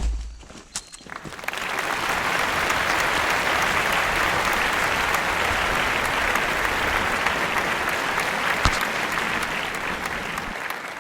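Applause, a steady patter of many hands clapping that starts a second or so in and fades out near the end.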